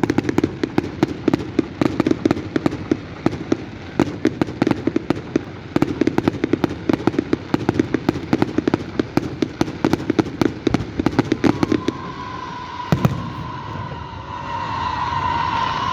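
Fireworks going off in a dense run of rapid crackling pops for about twelve seconds, then a single louder bang. Near the end a steady high tone comes in and grows louder.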